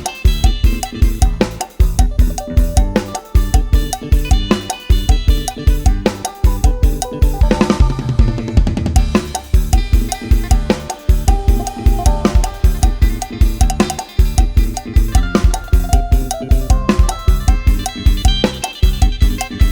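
Thai Isan lai hae procession music: a live-style drum kit keeps a steady, driving beat of bass drum and snare under a phin (Isan lute) melody. A quick drum roll comes about eight seconds in.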